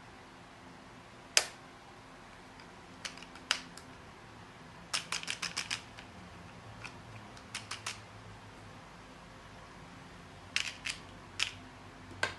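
Irregular sharp clicks and taps of small hard objects, with a quick run of about six clicks near the middle and one louder click early on.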